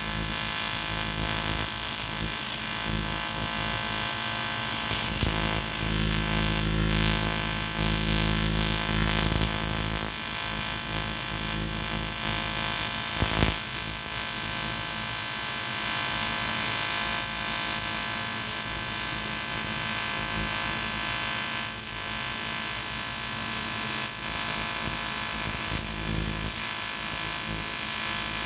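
AC TIG welding arc buzzing steadily on aluminium, with one brief click about halfway through.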